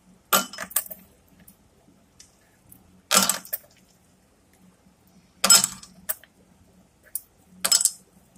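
Short bright clinks, four bursts about two seconds apart, as hands pick ice pieces out of desi ghee that has been creamed with ice in a plastic bowl for ghevar batter.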